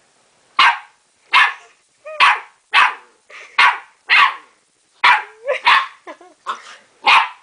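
A dog barking over and over in sharp single barks, about eleven of them, at its own reflection in a mirror, which it takes for another dog.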